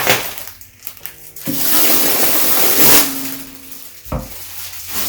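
Packaging being handled and pulled at as the water filter elements are unwrapped: a long rustling hiss from about a second and a half in to about three seconds, with a short low thump near the end.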